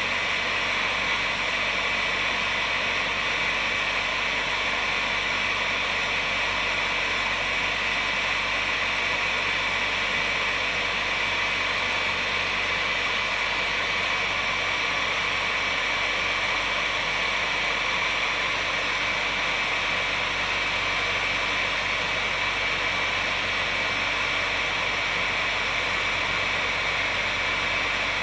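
Heat gun running steadily on a polyethylene kayak hull and a plastic welding rod, heating them for plastic welding: an even rushing hiss of hot air with a thin, steady high whine.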